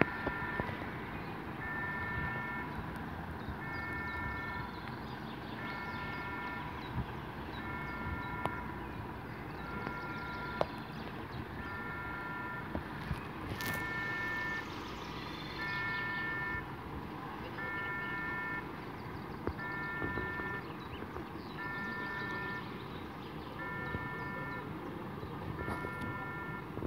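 Electronic warning beeper on a Scania P450 fire engine sounding a steady beep about every two seconds, each beep just under a second long. A single sharp crack comes about halfway through.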